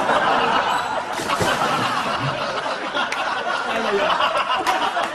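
Studio audience laughing loudly and continuously.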